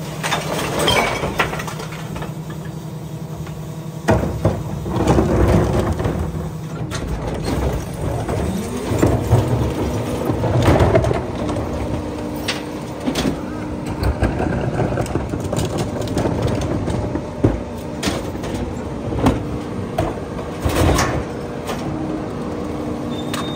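Freightliner New Way rear-loader garbage truck running, with steady hydraulic tones as its cart tippers lift and dump plastic recycling carts; the machine gets louder about four seconds in. Repeated knocks and clatter come from the carts banging and recyclables dropping into the hopper.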